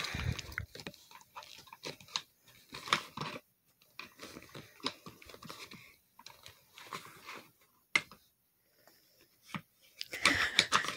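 Scattered clicks, taps and rustling of hands working the black metal seat plate and parts of a gaming chair during assembly, with one sharp click about eight seconds in and louder rustling near the end.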